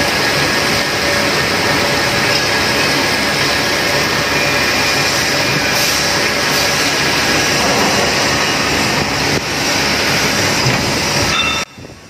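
Bridgeport CNC machining center drilling a workpiece under flood coolant: steady, loud spindle and cutting noise mixed with the hiss and splash of the coolant spray. It cuts off suddenly near the end.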